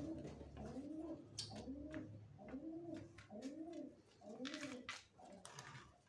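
A dove cooing: a steady run of short coos, each rising and falling in pitch, about two a second. Brief scuffing and rustling near the end as a person moves and crouches.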